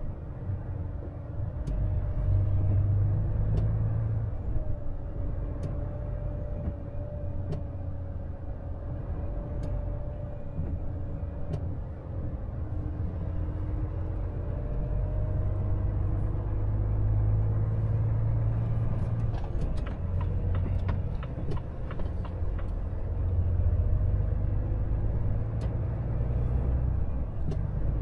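Volvo FH truck heard from inside the cab while driving: a steady low engine and road rumble that swells and eases several times with speed, with a faint steady hum above it and scattered light ticks.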